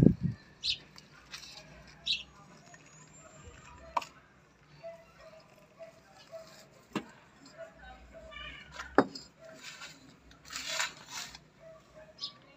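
Potting soil being handled and pressed by hand around a rose's root ball in a white pot: soft crumbly rustles with a few sharp clicks, and a louder rustle of soil about ten seconds in.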